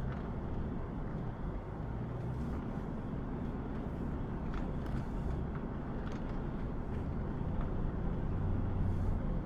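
Audi A6 Avant 4.2 quattro's V8 engine and drivetrain rumbling low and steady, heard from inside the cabin as the car crawls over a rough, overgrown track. There are a few faint ticks along the way, and the rumble grows slightly near the end.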